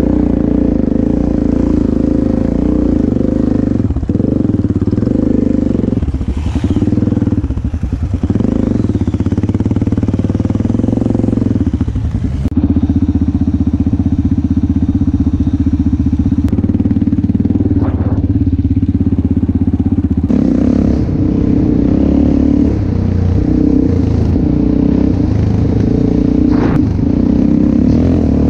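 Enduro motorcycle engine running under way, its note shifting and dipping several times with the throttle, with a few sharp knocks from the bike over rough ground.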